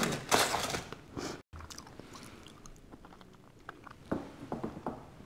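Close-miked chewing and mouth sounds of a person eating, loudest in the first second. After a brief dropout come quieter, scattered soft smacks.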